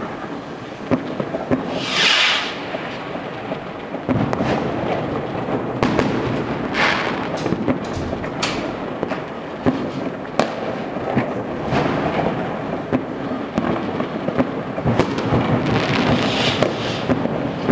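Many fireworks and firecrackers going off across the city: a dense, irregular run of bangs and cracks, with longer hissing bursts about two seconds in, around seven seconds in and again near the end.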